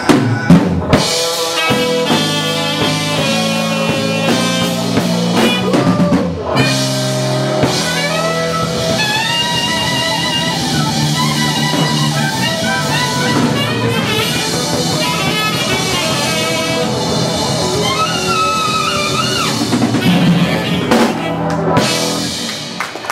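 Live dance band playing an instrumental passage: drum kit and bass under guitar and a melodic lead line that bends in pitch.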